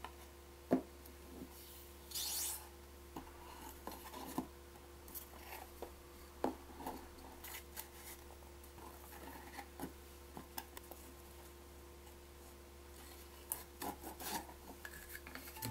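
Quiet handling noises of white board panels being fitted into a clear plastic box: scattered light taps and clicks, with a brief rasping scrape about two seconds in, over a faint steady hum.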